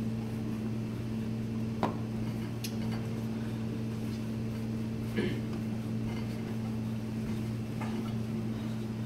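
A steady low mechanical hum, with a few faint knocks from a wooden rolling pin rolling saffron pasta dough on a plastic cutting board.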